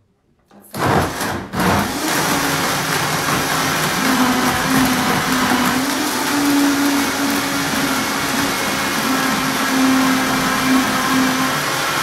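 Vitamix blender switching on suddenly about a second in and running at high speed, blending chia seeds and milk into a liquid pudding mix. The motor noise is loud and steady, with a slightly wavering hum underneath.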